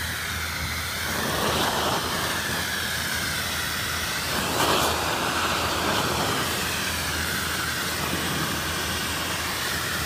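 Ice-dam steamer wand blasting a jet of steam onto ice and snow on a shingle roof: a steady rushing hiss over a steady low hum, swelling about a second and a half in and again near the middle.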